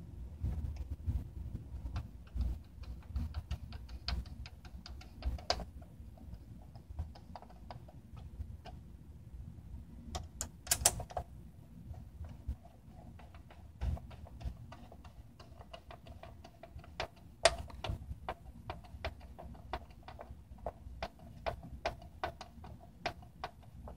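Screwdriver turning screws in a fat PS3's metal chassis: a run of small irregular clicks and ticks of metal on metal, with a louder cluster of clicks about ten seconds in and one sharp click a few seconds later.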